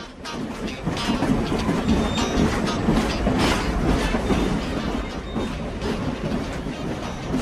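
Train running along the track, its wheels clacking over the rail joints. The sound swells up over the first second and then runs on steadily.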